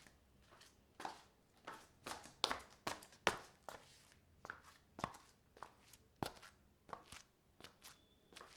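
Footsteps in slippers on a marble floor: an uneven run of short slaps, about two to three a second, loudest around three seconds in.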